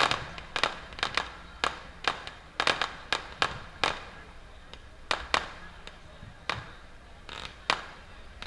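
Fireworks going off in an irregular series of sharp bangs, each with a short echo, several close together and a few short lulls between.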